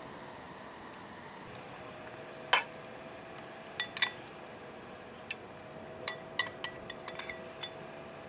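Metal cooking utensils and dishes clinking against each other: about a dozen sharp, ringing clinks, the loudest one about two and a half seconds in and a quick run of lighter ones near the end, over a faint steady hum.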